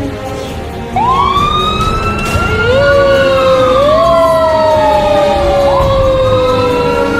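Fire truck sirens start about a second in. A wail sweeps up fast and falls slowly, then rises again near the end. From about two and a half seconds a second, lower siren winds up and slowly winds down beneath it.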